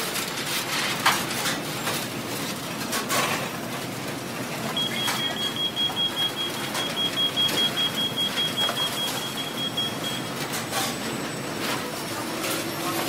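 Busy fast-food restaurant kitchen ambience: a steady wash of kitchen noise with scattered knocks and clatter of pans and utensils. A high electronic beep sounds continuously for about five seconds from around five seconds in.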